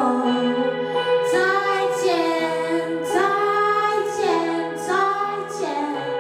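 Live band music: a woman singing drawn-out phrases over steady, sustained electric guitar chords.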